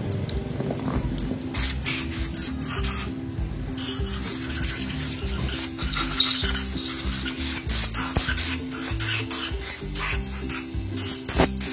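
Repeated rubbing and scraping strokes as lapping paste is cleaned off a diesel cylinder head's valve and seat after lapping, over background music.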